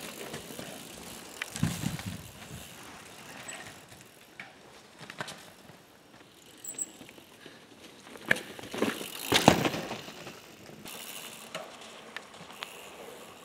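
Mountain bike riding along a leaf-covered dirt trail: tyres crunching over dirt and leaves, with loud knocks and thumps from the bike about two seconds in and again between about eight and ten seconds in.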